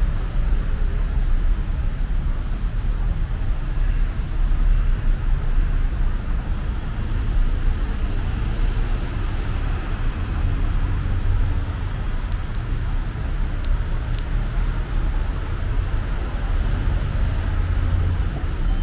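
Steady city road-traffic noise: cars and buses passing along a busy street, a continuous low rumble.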